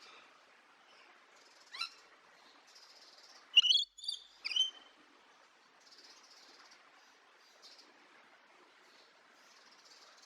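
Birds calling: faint high chirping throughout, a short call about two seconds in, then three loud, sharp calls falling in pitch around four seconds in.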